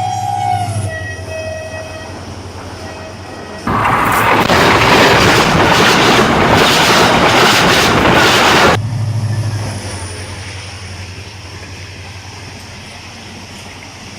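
HGMU-30 diesel locomotive's horn drops in pitch as the train passes and stops within the first second. The train's rumble follows, and about three and a half seconds in a sudden loud rush of noise from the express speeding past at about 120 km/h lasts some five seconds. It cuts off abruptly, leaving a rumble that fades as the train draws away.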